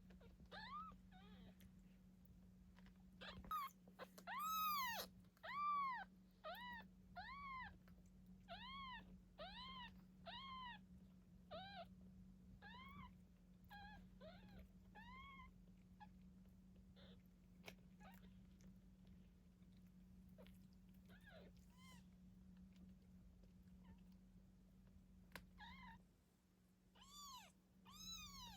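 Nine-day-old kitten mewing: short, high-pitched cries that each rise and fall in pitch, about two a second through the first half, then only now and then, with a few more near the end.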